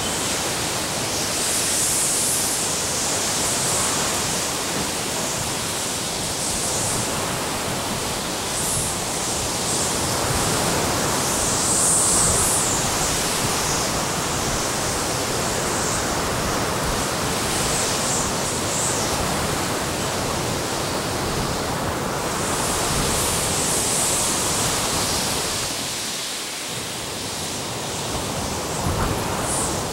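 Hurricane-force wind blowing hard as a dense, steady rushing noise, swelling now and then into hissing gusts.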